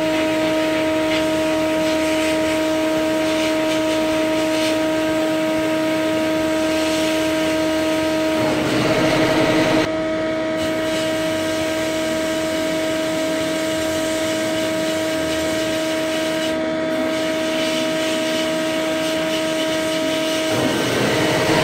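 Sandblast cabinet in use: a steady hiss of compressed air and abrasive from the blast nozzle onto small rusty steel parts, with a steady droning tone running under it. The tone breaks off into a rougher rush of air about eight seconds in and again near the end.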